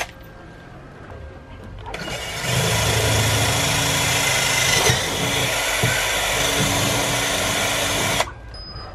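Cordless drill boring through thick fibreglass to open up a bolt hole that is too tight. It starts about two seconds in, runs steadily for about six seconds and stops suddenly.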